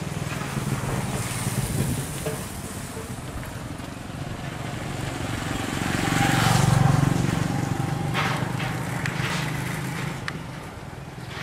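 A motorcycle passing close by on the road, its engine growing louder to a peak about six to seven seconds in and then fading away.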